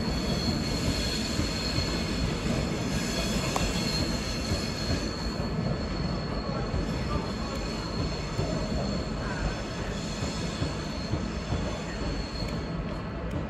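Train wheels squealing steadily against the rails, a high thin squeal over the low rumble of the moving train; the squeal fades out near the end.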